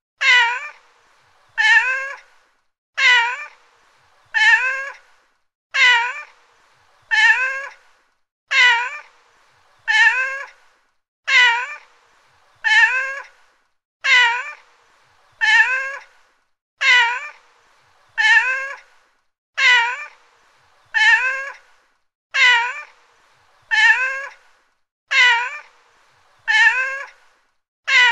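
A domestic cat meowing over and over: one short meow about every second and a half, each one the same, as if a single meow were repeated.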